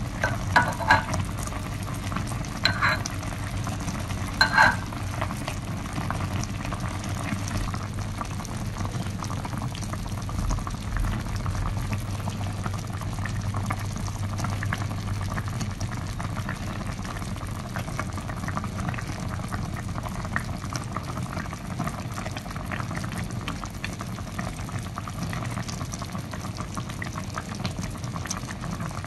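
Braised fish broth bubbling at a steady boil in a clay pot. In the first five seconds a metal ladle clinks against the pot several times, with a short ringing tone.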